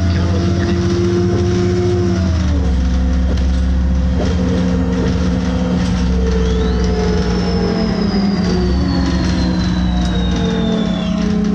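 City bus's engine and drivetrain running under way, heard from inside the passenger cabin: a steady hum whose pitched tones step down about two and a half seconds in and again near eight seconds. A high whine rises around the middle and slowly falls until it stops near the end.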